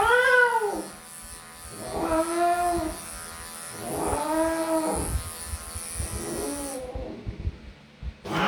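A cat yowling four times, each a drawn-out meow that rises and falls in pitch, about two seconds apart. Under it runs the steady high whine of electric grooming clippers, which switch off near the end. The 17-year-old matted cat is protesting at being clipped.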